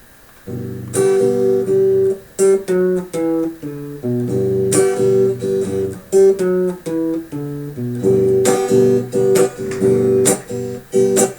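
Acoustic guitar strummed in a steady rhythm of chords, playing a song's introduction; it starts about half a second in.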